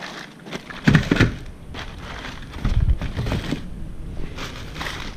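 Cardboard boxes and packaged engine parts being handled: irregular rustling, scraping and knocks, loudest about a second in and again near three seconds.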